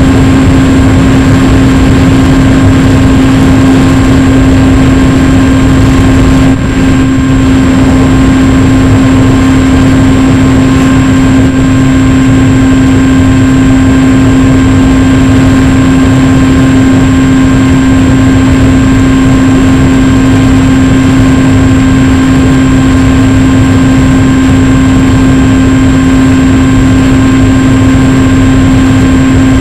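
RC FPV aircraft's motor and propeller running at a steady, unchanging pitch, loud, over a heavy rushing noise, with a brief dip about six and a half seconds in.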